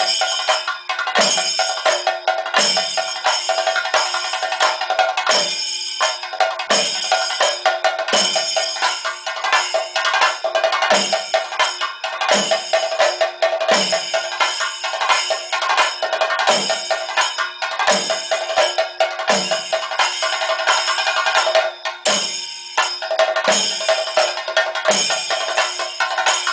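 Kerala chenda drums played in a thayambaka ensemble: a dense run of fast, sharp stick strokes over a steady metallic ringing, with a deeper drum stroke about every one and a half seconds. The fast strokes break off briefly twice, near a quarter of the way in and again near the end.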